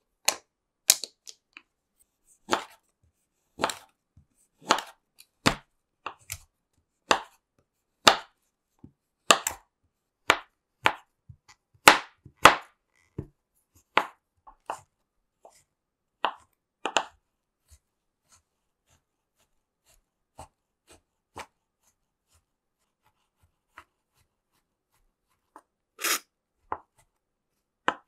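Kitchen knife chopping a bar of chocolate on a cutting mat: single sharp chops about one a second, thinning out after about seventeen seconds to a few faint ones and one louder chop near the end.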